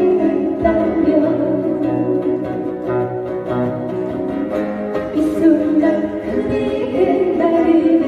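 Live song performance: two acoustic guitars strummed with keyboard accompaniment while a woman sings.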